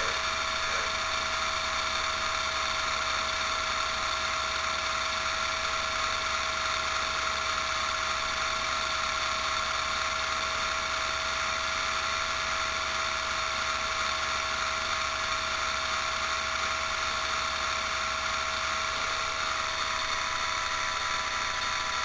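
Flyback high-voltage supply of a homemade ion-wind motor running: a steady electrical whine over a hiss and a low buzz, unchanging throughout.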